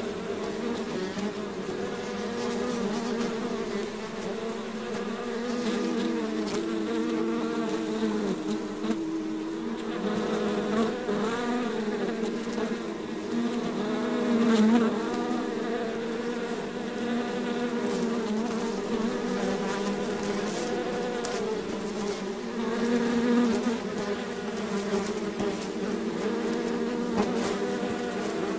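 A swarm of bees buzzing: many overlapping wavering hums that run steadily, with a bee swelling louder now and then as it passes close.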